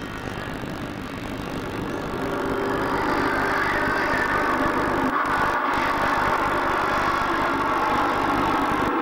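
A steady engine drone that grows louder about two to three seconds in and then holds.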